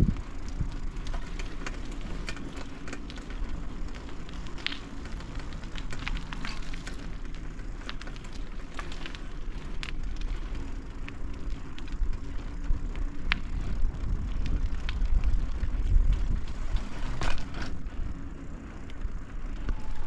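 Low rumble of wind on a moving phone microphone, with scattered light clicks and rattles and a faint low hum underneath.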